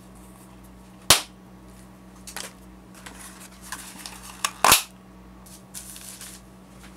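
A Christmas cracker pulled apart, its snap going off with a sharp crack about five seconds in, with paper rustling and crackling before it. Another sharp crack, much like it, comes about a second in.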